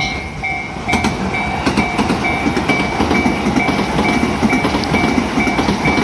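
Japanese level-crossing warning bell ringing about three times a second, over the rumble and wheel clatter of a Tobu Railway train running past the crossing.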